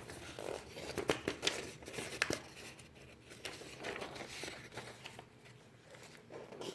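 Sheets of paper rustling and being handled, with a few sharp taps among them.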